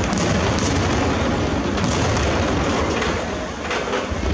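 Aerial firework shells bursting in quick succession: a continuous rolling rumble of booms, with sharp cracks in the first second. It thins out a little near the end.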